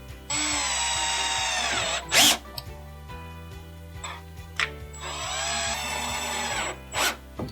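Cordless power drill driving screws in two runs of a little under two seconds each, its whine dropping in pitch as each screw seats, with a sharp knock after each run. Background music plays underneath.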